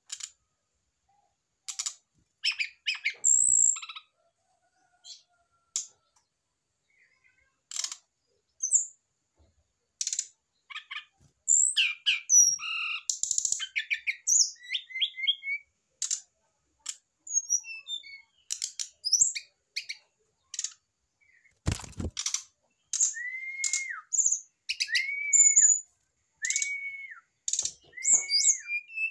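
Caged brown-chested jungle flycatcher calling, stirred up by a female placed beside the male: scattered sharp, high chirps and clicks, then, from about three-quarters in, the same short arched note repeated about every second and a half. A single low thump comes a little before the repeated notes begin.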